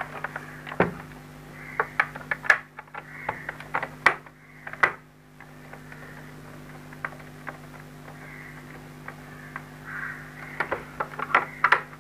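Irregular clicks and knocks of a plastic extension-box casing being handled, turned over and its screws tightened with a screwdriver, over a steady low hum.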